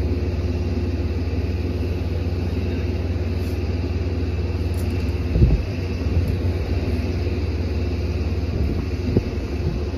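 Steady low rumble of an engine running nearby, with a faint steady hum above it. Two short knocks break in, a louder one about halfway through and a smaller one near the end.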